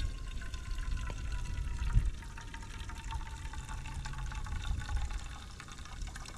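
Hot coffee poured in a thin, steady stream from a stainless steel French press into a metal bowl, with a faint tone that slowly falls as it runs. A brief thump about two seconds in.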